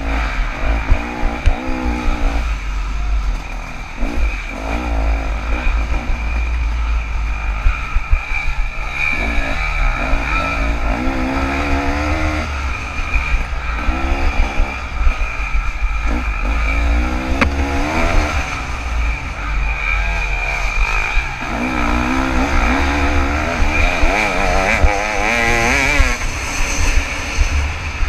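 KTM 300 two-stroke dirt bike engine, heard close up from the bike, revving up and falling off again and again as the rider works the throttle, under a heavy low rumble of wind and jolting.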